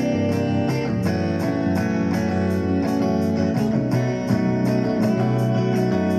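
Guitar music with a steady beat and changing bass notes.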